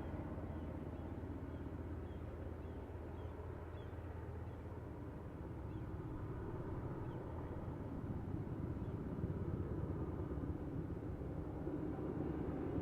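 Steady low outdoor rumble that swells slightly toward the end, with faint small high chirps in the first few seconds.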